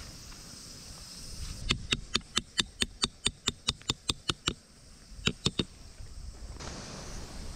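A VASTLAND 2023 short peg hammer driving a metal tent peg into the ground. It strikes in a quick run of about a dozen ringing metallic blows, four or five a second, then pauses briefly and gives three more blows.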